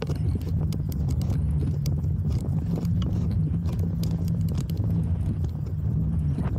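Bicycle rolling over a bumpy dirt track: a steady low rumble with frequent small clicks and rattles from the tyres and frame over the rough ground.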